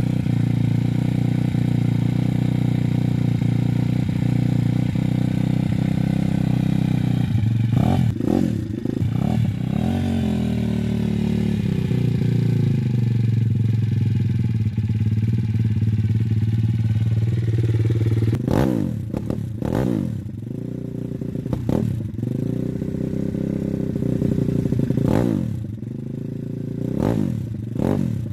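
Welsh Pit Bike 170 Detroit's 170cc four-stroke engine running and warming up from a cold start, with quick throttle blips: a cluster of revs about eight seconds in, and several short, sharp ones through the second half.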